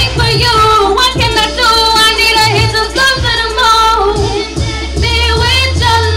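Woman singing live into a handheld microphone over a band, with a wavering, ornamented melody held over steady bass notes and regular drum hits.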